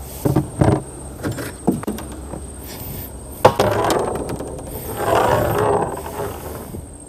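Several hollow knocks in the first two seconds and a sharp clack a little past the middle, then two stretches of rustling, scraping noise: gear and hands moving about inside a small plastic boat.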